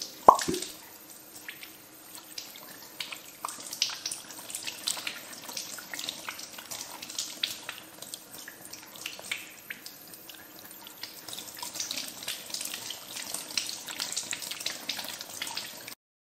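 Tap water running in a thin stream and splashing over hands being washed, with small irregular splashes throughout. A short sharp click comes just after the start, and the water sound cuts off suddenly at the very end.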